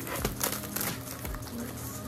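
Background music with a steady tone, over a few short crinkles and rustles of plastic packaging being handled.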